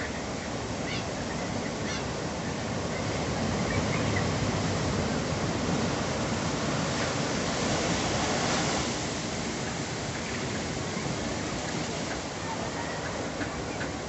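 Ocean surf breaking over a rocky reef and washing in as foam over sand, a steady rush of water that swells to its loudest in the middle and eases off after about nine seconds.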